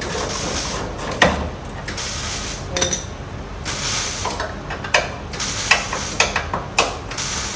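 Metal clanks, knocks and clicks of tools and car parts being handled, scattered and irregular, with the loudest knock about a second in.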